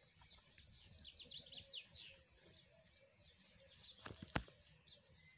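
Young European goldfinches chirping and twittering faintly, with a couple of sharp clicks about four seconds in.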